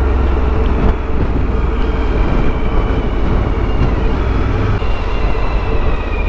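Motorcycle being ridden at a steady pace, its engine running under a constant low rumble of wind and road noise.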